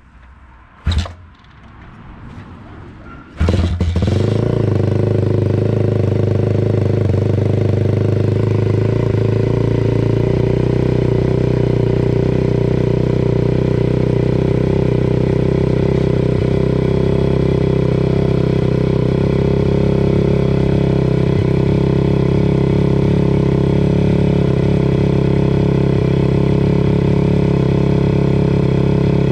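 MRF 140 RC-Z pit bike's single-cylinder four-stroke engine kick-started for the first time with the choke on: a sharp kick about a second in, then the engine catches about three seconds in and runs steadily at idle.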